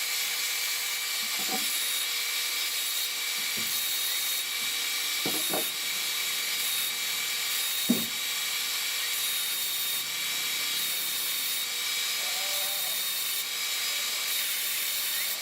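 Power sander running steadily with a cedar box end held against the abrasive, a high hiss over a steady whine, sanding the end flush with the walls.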